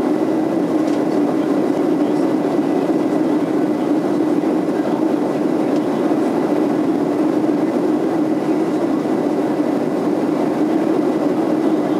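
Steady cabin noise inside a Boeing 737-700 in flight: an even, low rushing of its CFM56 engines and the airflow, unchanging in level.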